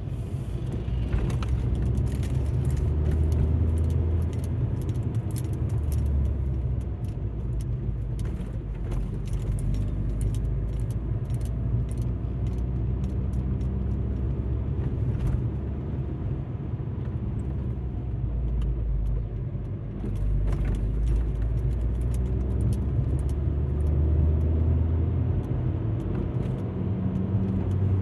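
Alfa Romeo MiTo driving, heard from inside the car: a steady low engine and road rumble that swells and eases over several seconds. Many light scattered clicks and ticks run over it.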